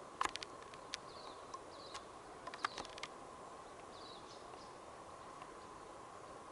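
Quiet bush ambience with a steady faint hum and a few short, high bird chirps. In the first three seconds a string of sharp clicks or snaps stands out as the loudest sound.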